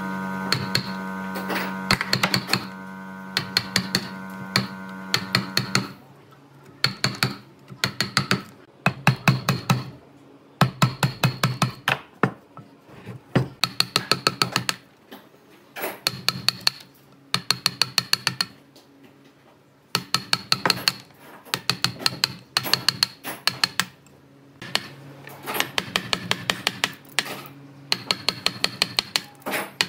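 A steel wood chisel pushed by hand through the thin wafers between saw kerfs in a timber post, snapping them off one after another. It comes as quick runs of sharp cracks and clicks every second or two. A steady hum runs under it and stops about six seconds in.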